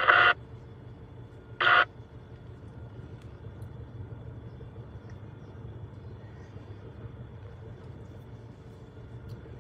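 Steady low diesel engine rumble from the heavy equipment, heard from inside a truck cab. A two-way radio transmission cuts off right at the start, and a short burst of radio squelch comes about two seconds in.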